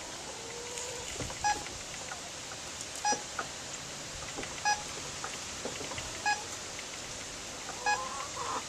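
PregTone electronic goat pregnancy detector giving short beeps, five of them about every one and a half seconds, as its wand is held against a doe's belly: the beeping tone that signals the doe is not pregnant.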